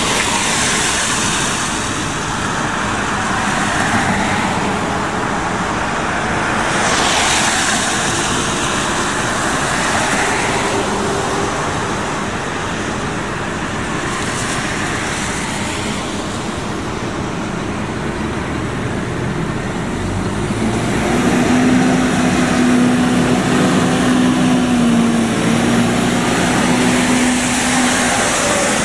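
City transit buses driving out past the microphone, their engines and tyres making a continuous rumble. Several louder swells come as individual buses pass. A steady droning hum sets in during the last several seconds.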